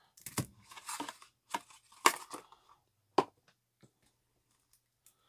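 Crinkling and rustling of Pokémon card packaging: the plastic-wrapped deck and foil booster packs of a Build & Battle box being handled. A run of sharp crackles over the first three seconds, then it goes quiet.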